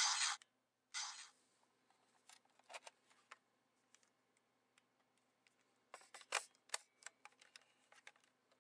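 Two short hissing bursts about a second apart at the start, then scattered plastic clicks and taps as a toy Lockseed padlock is handled and fitted into a Sengoku Driver toy belt, with a cluster of sharper clicks past the middle.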